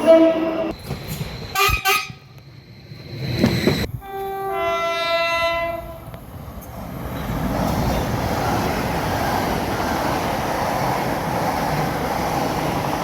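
Train horn: a short blast at the start, then a chord of about two seconds about four seconds in. After that comes a steady rushing rail noise as a train rolls by.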